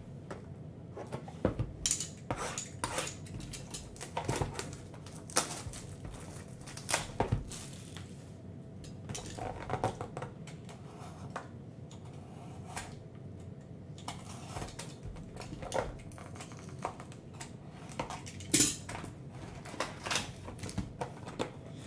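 Cellophane shrink wrap crinkling and crackling as it is peeled off a sealed trading-card hobby box, then the cardboard box being pried open, giving many scattered sharp clicks and rustles.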